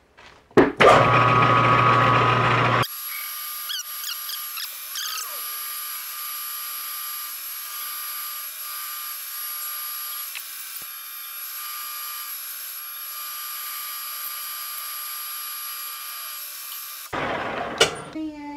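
Metal lathe running while a boring bar takes a finishing facing cut inside the bore of a cast pulley blank. A steady hum with a high whine, then from about three seconds in a quieter steady high whine and hiss of the cut. It grows louder again near the end, with a sharp knock.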